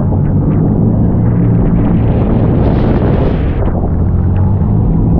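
An engine running steadily under load, with wind buffeting the microphone. About two seconds in, a louder rushing hiss swells up, then cuts off sharply a second and a half later.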